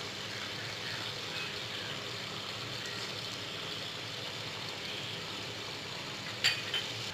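Hot mustard oil sizzling steadily in a pan as nigella seeds go in for the tempering (phoron). A short knock near the end.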